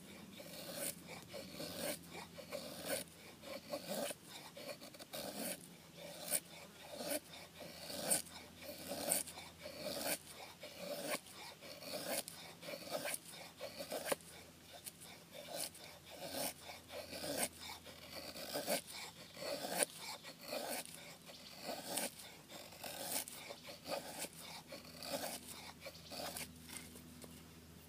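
O1 tool-steel bushcraft knife shaving curls down a wooden stick to make a feather stick: short scraping strokes, about two a second, that stop near the end.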